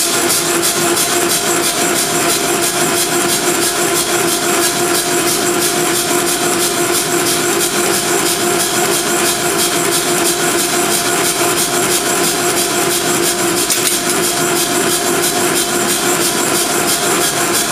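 Nazel 3B self-contained air power hammer running at idle with its ram not striking, the compressor beating out a fast, even rhythm. Over it sits a steady whistling tone, which the owner puts down to the valve timing being set slightly off.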